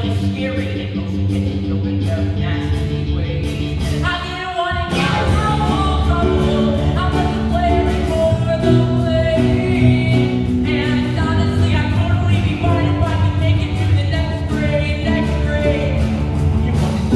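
Singers performing a rock-style musical theatre number over band accompaniment. The accompaniment grows fuller and heavier in the bass about four and a half seconds in.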